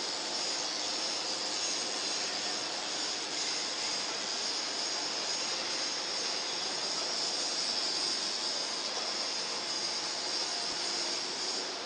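Steady, even hissing noise of forging-shop machinery around a ring rolling mill, strongest in a high hiss, easing slightly near the end.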